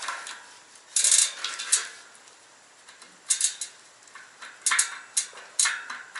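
Sharp metal clinks and clanks, about six at irregular intervals, the loudest about a second in, as a tool works a stuck bicycle cassette's steel sprockets off the freehub. The cassette is stuck because its sprockets have bitten into the freehub body.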